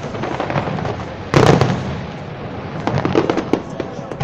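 Fireworks display: one loud boom of a shell bursting about a second and a half in, with many smaller pops and crackles around it, more of them near the end.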